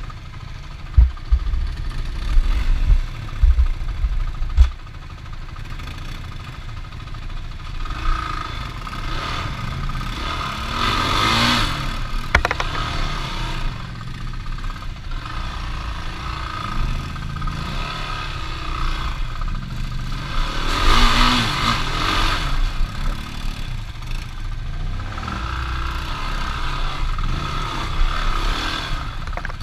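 Off-road vehicle engine running under way, revving up twice, with several heavy low thumps in the first few seconds.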